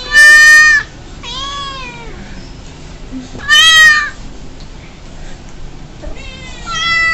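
Four cat meows: two very loud, flat-topped meows, about a second in and about three and a half seconds in, from a played cat sound effect, each followed by a quieter, falling meow from a cat answering it.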